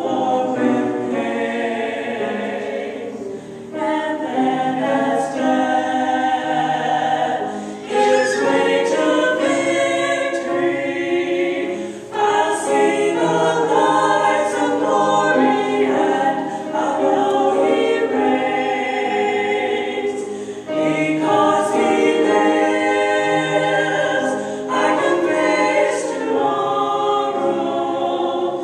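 A small group of four women singing a song together in parts, phrase after phrase with short breaks for breath.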